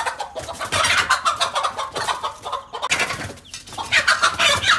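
Domestic hen squawking and clucking loudly and harshly in agitated runs, with short breaks about three seconds in: a mother hen's defensive outburst as she attacks a cobra.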